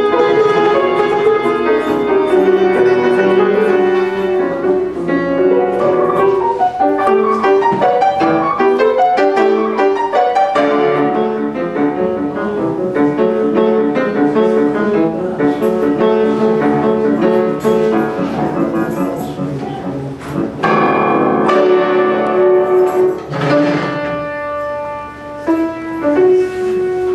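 Grand piano playing a classical piece in fast, dense runs of notes, with loud struck chords about two-thirds of the way through.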